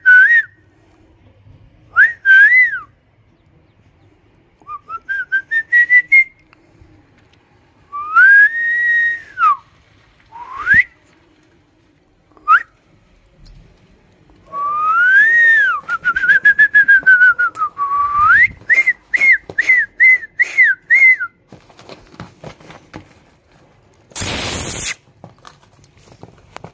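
A person whistling a tune of swooping rising and falling notes, with a long wavering note in the middle and a quick run of short repeated notes after it. Near the end, a brief loud tear of cardboard.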